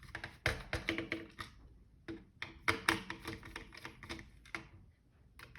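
Quick, irregular clicks and taps of small plastic and metal parts being handled and pried apart while a desoldering gun is dismantled.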